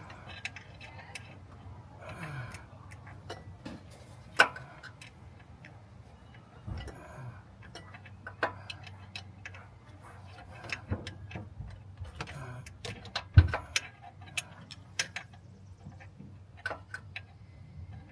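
Hand tools clicking and clinking against metal at irregular spacing, with sharper knocks about four seconds in and near thirteen seconds in.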